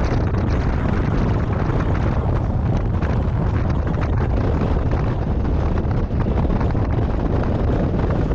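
Wind rushing over the microphone of a motorcycle riding at about 25 mph: a steady, deep rush, with the bike running underneath it.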